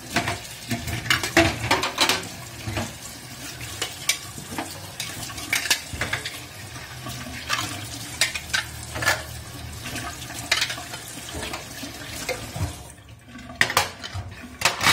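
Tap water running into a stainless steel sink while metal twist-off jar lids are rinsed, clacking against each other and the sink again and again, with a cluster of clacks near the end as they are stacked.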